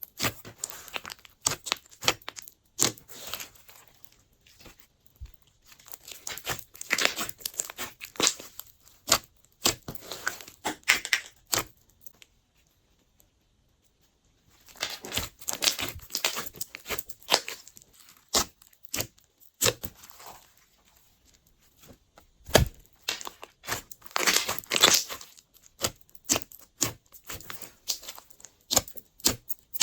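Hands squishing, stretching and folding glossy slime, making sticky crackling and popping clicks in quick runs, with a pause of a couple of seconds about halfway through.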